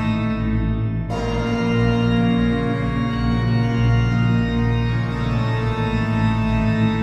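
Background organ music: slow, sustained chords, changing about a second in and again about five seconds in.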